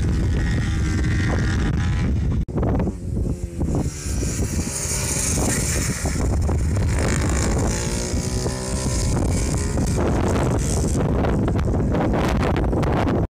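IMR MiniGP 110 minibike engine revving up and down as it is ridden through the corners, heard under heavy wind buffeting on the microphone. The sound drops out briefly about two and a half seconds in and cuts off suddenly at the end.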